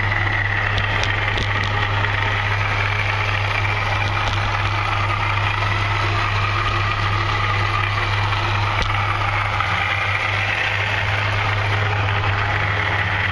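Ford Ranger pickup running, heard from underneath the truck: a steady low hum with a fainter high whine wavering over it. The owner, seeing the whole subframe shake, bets this is a worn driveshaft center support (carrier) bearing.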